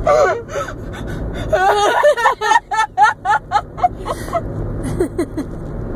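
A girl laughing uncontrollably in high-pitched, breathy pulses, with a quick run of them about a second and a half in, over the steady road rumble inside a moving car.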